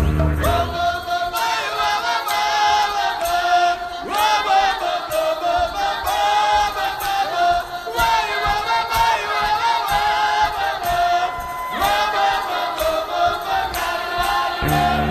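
Song with several voices singing together in Ukrainian folk style over a light, evenly ticking percussion, with the bass and low drums dropped out; the low end comes back in right at the end.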